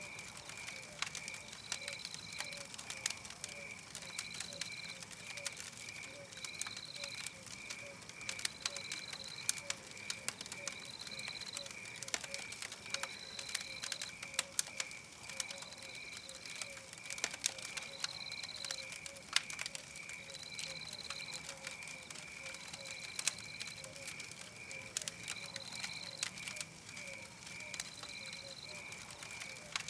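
Wood fire crackling with frequent sharp pops, over a looped night-forest soundscape. The soundscape has a call pulsing about three times a second and a higher, slightly longer call repeating every two seconds or so.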